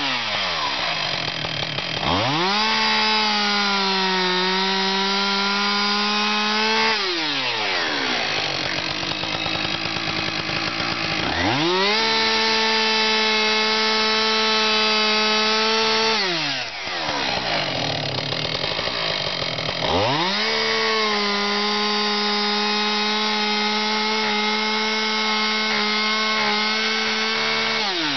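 Two-stroke chainsaw plunge-cutting a mortise into a timber fence post with the nose of its bar. It runs at full throttle three times, each for about five to eight seconds with the pitch sagging slightly under load, and drops back to idle between cuts.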